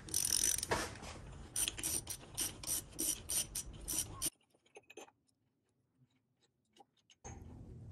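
Ratchet wrench clicking in quick, repeated strokes on a large front axle socket as it backs off a hub axle nut. The clicking stops about four seconds in.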